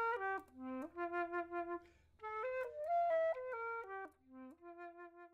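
Outro music: a single melody line in short stepping notes, the phrase repeating about two seconds in, each time ending with a brief low note and then a held note.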